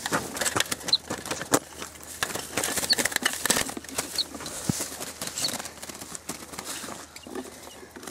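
Ortolan buntings caught in a wire-mesh cage trap fluttering against the mesh while the trap is handled, with rustling and clicking of wire and dry grass. A few brief high chirps are heard.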